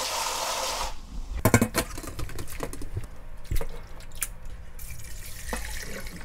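Tap water runs into a stainless steel bowl as gamtae seaweed is scrubbed by hand, and stops abruptly about a second in. Then come splashes, sharp knocks and wet squelching as the seaweed is lifted in a metal strainer, and a rush of muddy rinse water poured off near the end.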